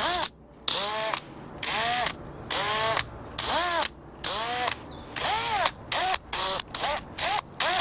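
Cordless drill pulsed on and off in short bursts, its motor whining up in pitch and falling back each time. The bursts play out as a rhythmic pattern and come quicker toward the end.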